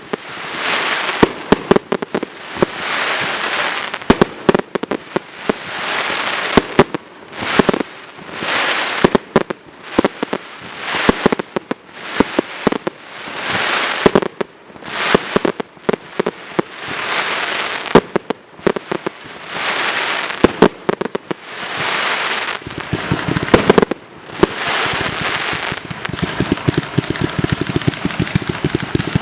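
A fireworks display: a steady series of sharp bangs, each followed by about a second of hissing crackle, coming roughly every one and a half seconds. Near the end they give way to a fast, dense run of small pops.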